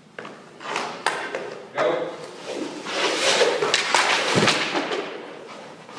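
Hockey skates scraping and cutting on rink ice, with scattered knocks and thuds from sticks, puck and goalie pads during a goalie drill; a longer scraping rush comes in the middle.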